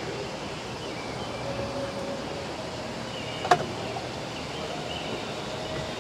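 Steady open-air background noise aboard a river sailing ship, with one sharp knock about three and a half seconds in.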